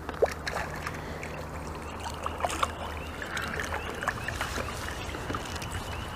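A small hooked carp splashing and thrashing at the water's surface as it is drawn into a landing net, a string of short irregular splashes.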